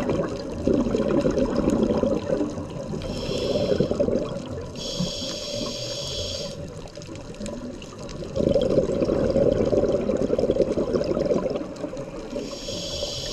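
Scuba diver breathing through a regulator underwater: two long gurgles of exhaled bubbles, at the start and about eight seconds in, and the demand valve's hiss on each inhale between them, about five seconds in and again near the end.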